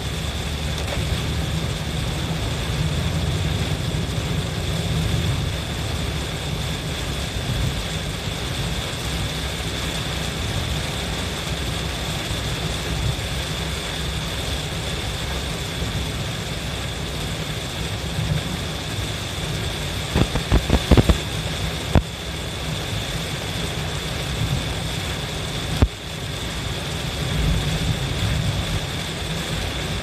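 Inside a car driving through heavy rain: steady low road and engine rumble under a constant hiss of rain and tyre spray. A quick cluster of sharp knocks comes about two-thirds of the way through, and a single knock a little later.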